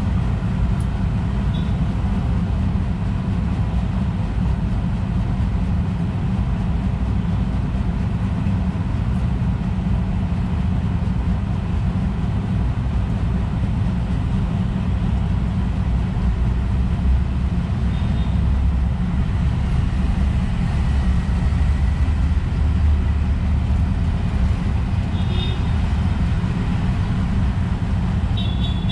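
Steady low rumble of outdoor background noise, with small birds chirping briefly and faintly a few times: once early, once past the middle and a few together near the end.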